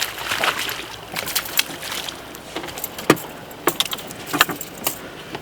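Irregular knocks and clicks of gear being handled on a small boat, the loudest knock about three seconds in.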